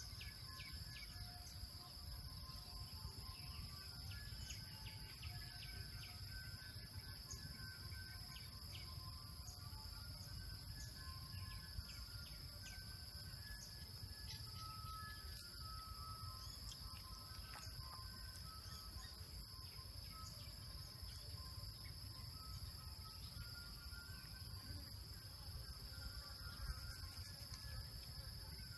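Rural outdoor ambience: a steady high-pitched insect drone with short, scattered bird chirps over a low rumble.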